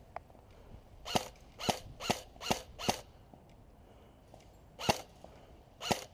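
Airsoft electric rifle (AEG) firing single shots: five quick cracks about a second in, then two more near the end.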